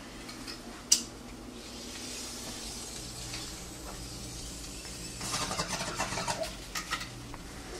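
Faint steady room hum with one sharp click about a second in, then a few seconds of rustling and handling noise from about five seconds in.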